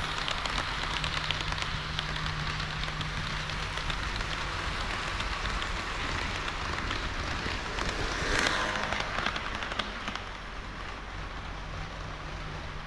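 HO-scale model of KiHa 40 and KiHa 58 diesel railcars running along the track: a steady crackling rattle of small wheels on the rails over a low hum, with a brief louder swish about eight seconds in.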